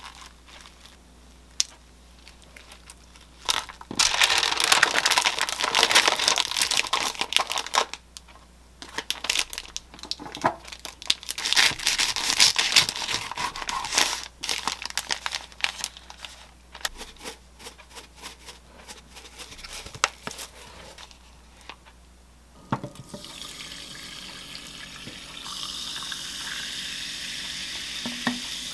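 Baking paper crinkling and rustling in two long spells as a sandwich is wrapped in it, followed by scattered knocks and clicks as it is cut on a wooden board. Near the end, sparkling water is poured over ice into a tall glass, a steady fizzing pour that starts suddenly and grows louder.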